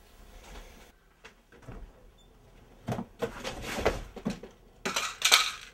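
Handling noise of objects being moved: scattered clicks and knocks, then two louder bursts of clattering, about three seconds in and again near the end.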